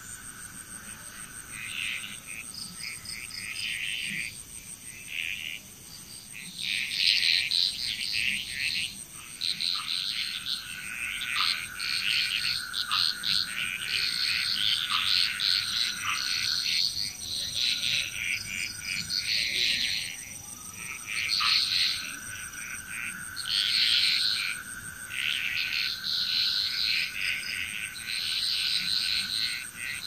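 A chorus of frogs calling, in many overlapping bursts that come thicker after the first few seconds. A steady high-pitched tone runs beneath them.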